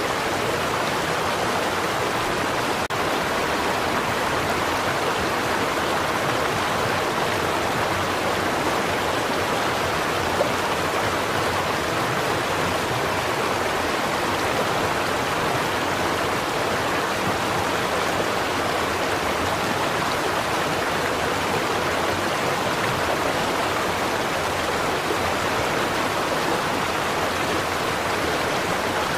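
Small stream flowing steadily over stones, a constant rush and babble of water.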